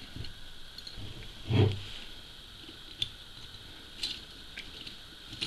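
Handling noise from unscrewing the metal housing of an x-ray tube head by hand: a soft thump about one and a half seconds in, then a few light, scattered clicks.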